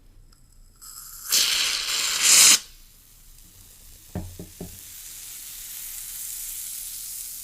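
Lotion on skin crackling as tiny bubbles in it pop, a sizzling like frying bacon. A loud burst of crackling about a second in lasts just over a second, a few soft clicks follow, then a quieter steady sizzle slowly builds.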